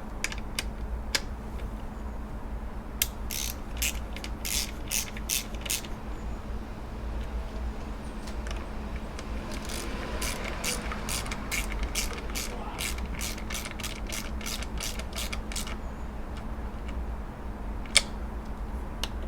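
Socket ratchet clicking in two runs of quick, even clicks as bolts are turned, with one sharper single click near the end.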